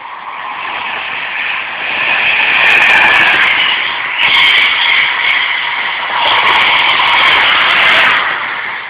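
Virgin Pendolino electric express train passing through the station at speed: a loud rush of wheels on rail with a steady whine, building over the first couple of seconds and fading near the end.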